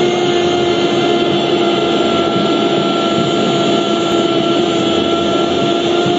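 A football commentator's long drawn-out goal cry, one unbroken shouted note held at a steady pitch and sinking very slightly, over the roar of a stadium crowd.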